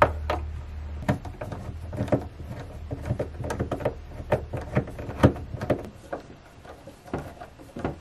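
Hand screwdriver driving a screw to fit a metal cabinet-lock bracket into a wooden cabinet door: irregular clicks, taps and scrapes of the tool, screw and bracket against the wood.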